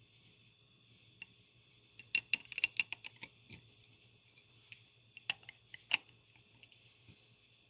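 Irregular small metallic clicks and clinks of ratchet parts being handled, with a quick cluster of a dozen or so about two seconds in and a few louder single clicks near the end, over a faint steady hum.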